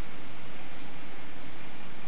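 1964 Ford Galaxie engine idling steadily, running on its freshly rebuilt carburettor.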